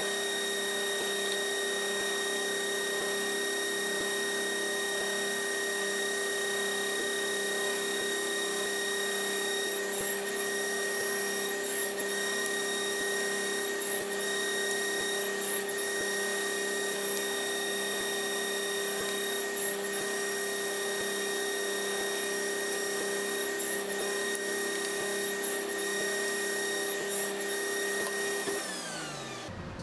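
Table saw running steadily at full speed, with a few short knocks as the wood and sled are handled between cuts for the axle slots. Near the end the saw is switched off and its pitch falls as the blade spins down.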